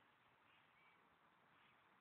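Near silence: faint outdoor hiss with a few faint, short bird chirps.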